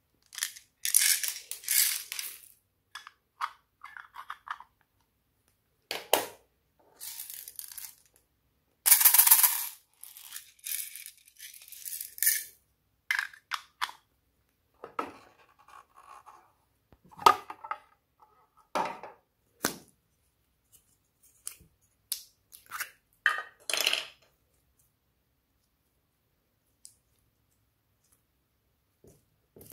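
Glossy slime being worked by hand: irregular bursts of sticky crackling, clicking and popping with short pauses between them.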